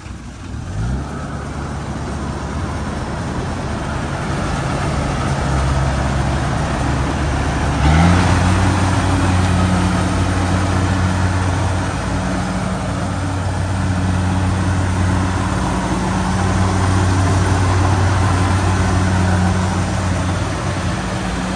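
An engine starts up about a second in and runs at a steady low speed, then revs up about eight seconds in and holds the higher speed.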